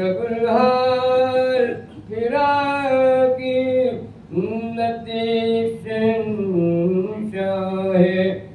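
An elderly man singing a soz, a Shia mourning elegy in Urdu, unaccompanied, in four long drawn-out phrases with short breaths between.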